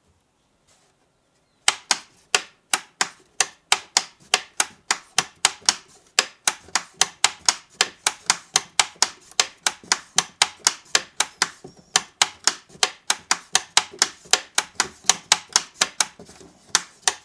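Metal toggle switches flipped by hand in quick succession: a steady run of sharp clicks, about four or five a second, starting about two seconds in with two brief pauses. The switches are commutating the coils of a home-built three-phase brushless motor by hand, energising them in turn to spin its magnet rotor.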